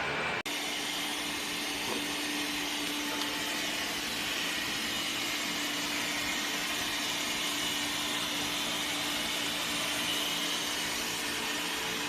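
ILIFE V3s Max robot vacuum cleaner running: a steady suction hiss over a low, even motor hum. The sound cuts out for an instant just under half a second in, then carries on unchanged.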